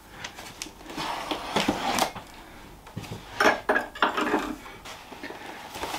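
Rustling and scraping as a cardboard box is handled, then a few sharp knocks and a short clatter about three and a half seconds in as a knife is drawn from a wooden knife block.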